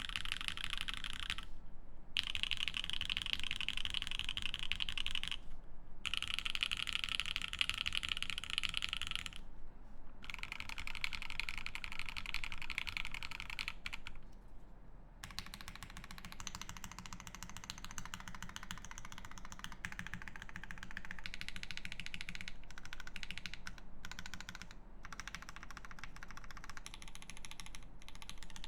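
Fast typing on a Keycult No.1/65 mechanical keyboard with an aluminium plate, lubed Pinoko V2 switches and GMK keycaps: a steady stream of keystrokes broken by a few short pauses. The sound of the keystrokes changes about halfway through.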